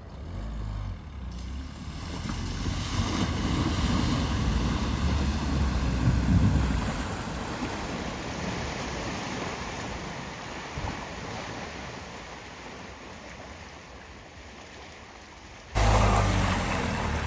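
A vehicle driving through flood water at a ford: a low engine rumble with the wash of water, building over the first few seconds and then fading away. Near the end a sudden cut brings in a louder low rumble.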